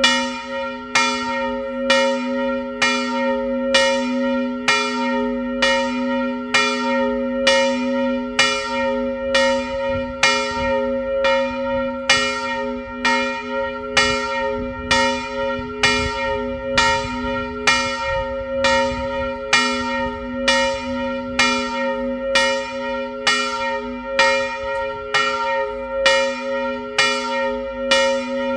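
Large church bell of about 330 kg, tuned to b¹ and cast by Karol Schwabe of Biała in the 1920s, swung and ringing alone, its clapper striking about once a second while the low hum note sounds on between strikes.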